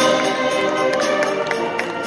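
School band playing live, holding sustained chords over a steady beat of sharp taps.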